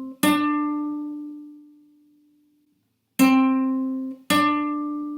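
Single notes plucked on a guitar-like string instrument and left to ring out. A higher note fades, then about three seconds in the lower note sounds again and is followed a second later by the higher one. It is a small step up between neighbouring scale degrees, 1 to 2.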